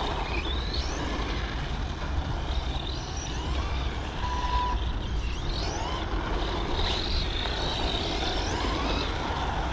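Arrma Vorteks 1/10 electric RC truck driving on asphalt: a motor whine that rises and falls again and again as it accelerates and slows, over tyre noise. A low rumble of wind sits underneath.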